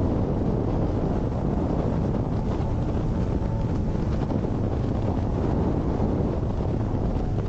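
Steady rush of wind on the microphone over the engine and hull noise of an outboard-powered race boat running flat out at about 95 mph.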